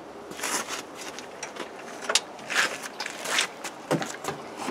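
Knocks, scrapes and scuffling as a Texas motor-cultivator is lifted and set into a car boot, the tiller's metal frame and tines bumping the boot and boards, with a few sharper knocks about two to three and a half seconds in.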